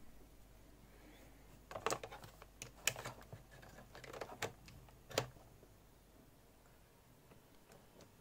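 A run of sharp clicks and clatter over about three and a half seconds as a USB cable is handled across a ThinkPad laptop's keyboard and plugged into its USB port, followed by a few faint key taps near the end.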